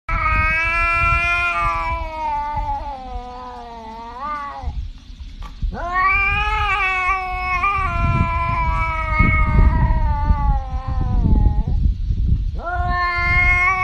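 Tabby cat yowling: three long, drawn-out yowls, each bending in pitch. The first lasts about four and a half seconds, the second about five, and the third starts near the end. A low rumbling noise runs underneath.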